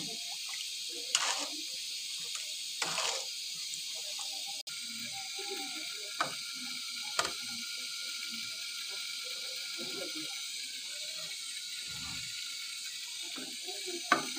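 Steady hiss of a gas stove burner, with a metal spoon scraping and knocking against a metal karahi a couple of times in the first few seconds. After a short dropout the hiss goes on, with a few sharp clicks.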